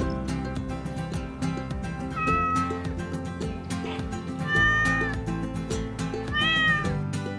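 Domestic cat meowing three times, about two seconds apart, each meow short and arching in pitch. Background music with a steady beat plays underneath.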